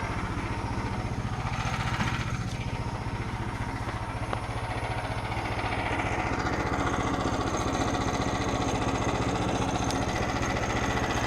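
Small gasoline engine of a portable bandsaw sawmill running steadily with an even low putter.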